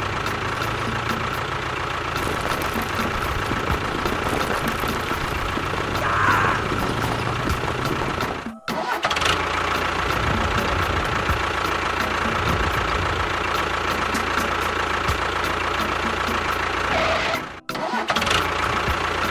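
Steady engine-like running of a mini model construction vehicle, with a constant whine, cut off suddenly twice for a moment.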